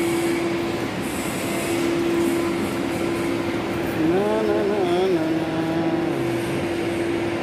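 Steady industrial machinery noise in a steel pipe fabrication shop: a constant hum with one steady tone that drops out briefly about a second in. A voice calls out briefly about four seconds in.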